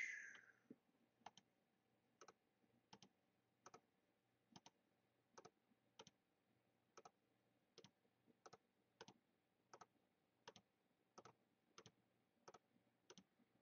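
Faint, slow clicks of computer keys, about one every three-quarters of a second, as data is typed into a spreadsheet.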